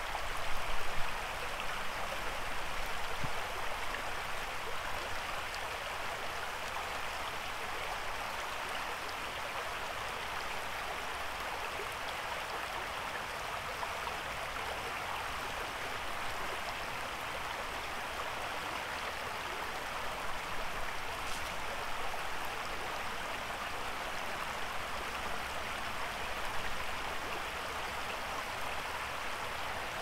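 Shallow creek flowing over rocks and stones: a steady rush of running water, with a few brief louder surges about a second in.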